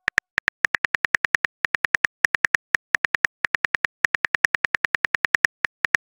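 Phone keyboard click sound effect of a message being typed: a rapid string of short, identical ticks, about eight a second, broken by a few brief pauses.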